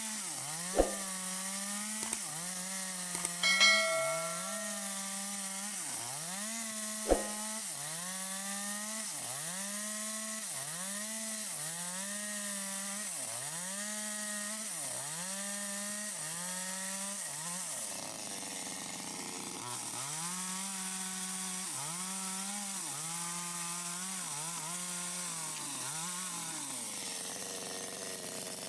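Stihl MS 250 two-stroke chainsaw with a 25-inch bar cutting wood, its engine speed sagging and recovering about once a second as the chain bites in and eases off. Two short sharp knocks sound near the start and about seven seconds in.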